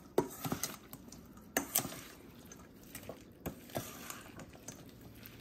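Razor clam ceviche being tossed in a bowl: a handful of light, irregular clicks of utensils against the bowl with soft wet squishing of the dressed clams and herbs.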